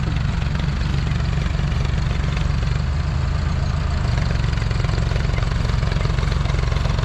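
Massey Ferguson 135 tractor engine running steadily under heavy load, straining against a chained line of tractors that it cannot move.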